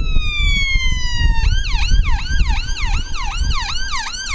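Ambulance siren passing: a slow wail falling in pitch, which switches about 1.4 seconds in to a fast yelp of about three cycles a second, over a low steady rumble.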